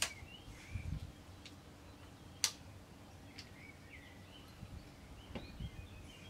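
A few sharp clicks and low knocks from a tripod being extended and handled, the loudest click about two and a half seconds in. Small birds chirp now and then.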